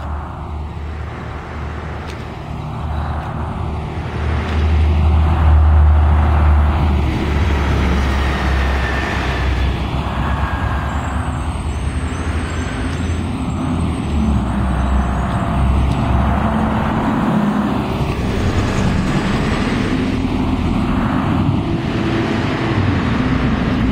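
Diesel coach buses running past on the road, a deep engine drone that swells as a bus passes about five to seven seconds in, with general traffic sound.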